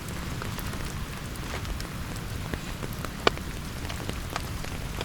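Steady rain with individual drops striking close by at irregular moments, one sharper drop about three seconds in.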